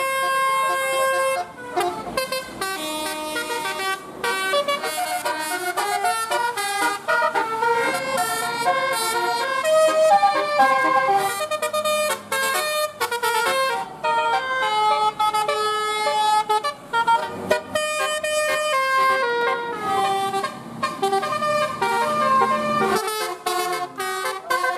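Bus telolet horn, a multi-trumpet air horn, playing a quick tune of stepping notes, with a few short breaks between phrases.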